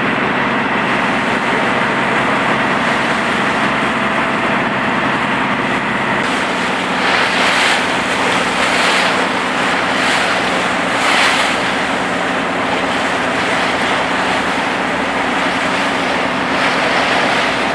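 A boat's engine running steadily underway, with wind on the microphone and water rushing along the hull; several louder rushes of hiss come about seven to eleven seconds in.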